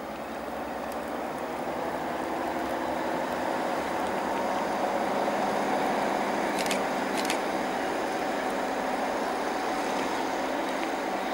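Passenger train pulling away from the station, its running hum building over the first few seconds and then holding steady. Two sharp clicks come a little past the middle.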